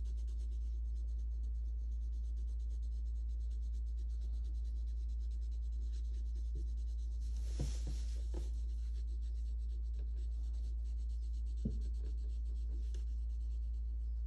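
Graphite pencil shading on sketchbook paper: rapid, faint scratchy strokes, louder for a moment about halfway through, with a couple of light ticks. A steady low hum runs underneath.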